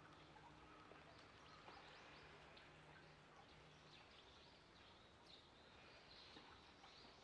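Near silence: faint outdoor ambience with scattered faint bird chirps and a low steady hum that stops about halfway through.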